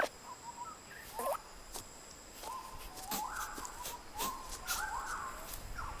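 A small animal making soft squeaky calls: a short one about a second in, then a run of rising, stepping squeaks in the second half. Under them are a faint steady high hum and scattered light ticks.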